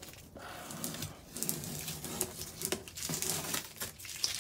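Irregular rustling and soft clicks of handling noise as the phone is moved about inside the small aircraft cabin.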